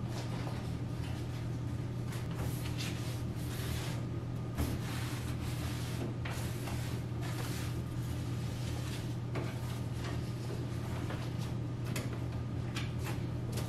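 Household tidying: irregular knocks, clicks and clatter of things being handled and cupboard or drawer doors opening and closing, over a steady low hum. One sharper knock comes about four and a half seconds in.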